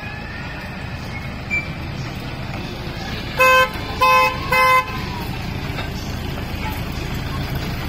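Toy train's horn sounding three short toots in quick succession about three and a half seconds in, over the steady low rumble of the train running past.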